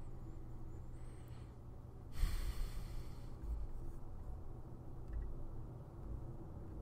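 A man's single audible breath into a close microphone about two seconds in, lasting about a second, over a steady low hum.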